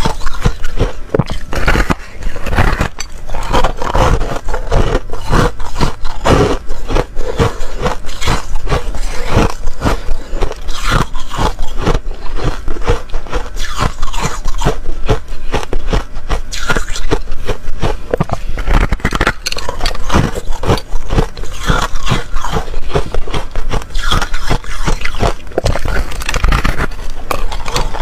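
Close-miked biting and chewing of a large frosty chunk of ice: loud, dense crunching and crackling with sharp snaps, going on without a break.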